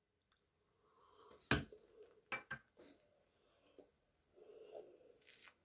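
Sipping water from a small metal cup, with a sharp clack about a second and a half in as the cup is set down on the table, two lighter knocks a second later, and faint mouth and breath sounds near the end.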